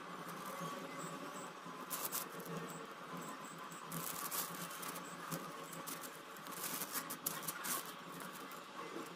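A diamond-painting drill pen tapping and pressing small resin drills onto the sticky canvas: scattered light clicks and crackles, in small bunches about two seconds in, around four seconds, and near seven to eight seconds.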